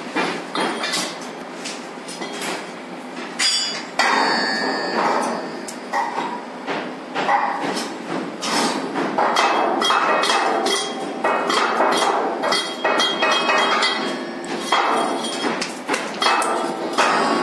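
Irregular, repeated metal clanks and knocks from work on the steel climbing frame of a concrete placing boom, with a short high squeal about four seconds in.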